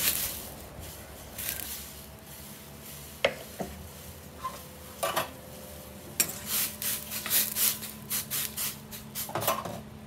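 Tomato wedges splash into a stainless steel wok of heating water. This is followed by scattered light clinks and taps on the wok, which come quickly in a run of about a dozen over the last few seconds.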